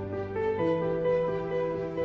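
Background music: slow, gentle sustained chords, changing chord about half a second in.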